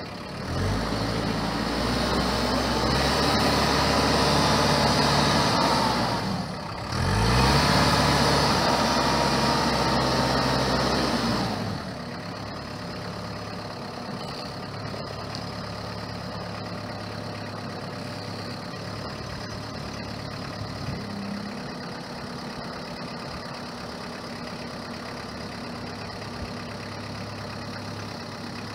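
Kubota M59 tractor-loader-backhoe's diesel engine revved high for about eleven seconds, dipping briefly and climbing back near the middle, then dropping to a steady idle for the rest of the time.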